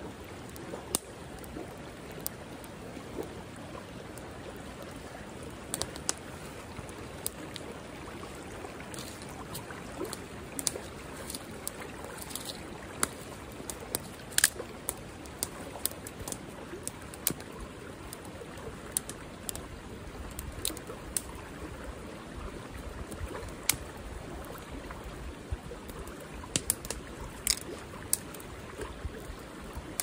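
A creek rushing steadily, with scattered sharp snaps and pops from dry twigs crackling in a small campfire and being broken by hand.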